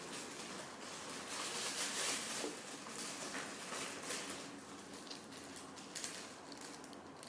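Rustling and crackling handling noise as a foam squishy toy is squeezed and turned over in the hands, a little louder between about one and two and a half seconds in.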